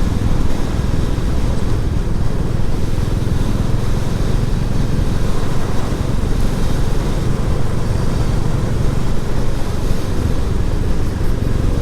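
Royal Enfield Classic 350's single-cylinder engine running at a steady pace under way, mixed with steady wind rush over the microphone.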